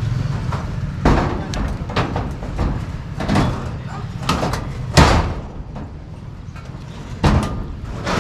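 Building-site work: a run of irregular sharp knocks and bangs, about seven in eight seconds, the loudest about five seconds in, over a low steady rumble.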